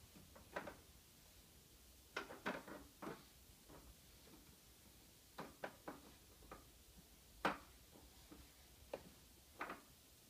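Sparse light clicks and knocks of hard plastic baby toys being handled, about ten in all, some in quick pairs, against near silence.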